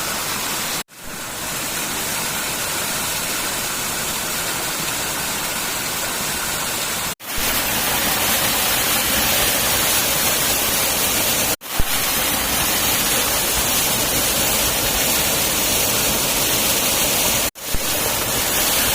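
Steady rushing noise of running water, broken four times by sudden brief cuts, after which it carries on at a slightly different level.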